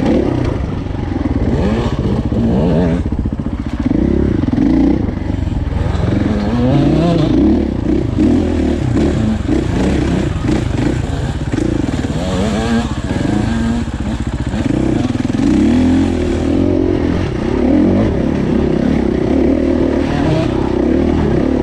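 Off-road dirt bike engine heard close up from the bike itself, revving up and down over and over as it picks its way along rough trail, with the machine rattling over the ground.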